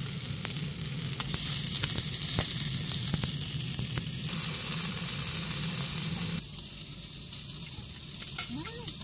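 Food sizzling as it fries in a pan, with scattered small clicks and ticks of spitting fat. A steady low hum under the sizzle drops away about six seconds in, leaving a softer sizzle.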